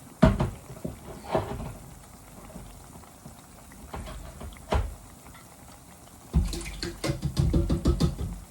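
Kitchen work sounds: a few separate knocks, then a quick run of knocks near the end.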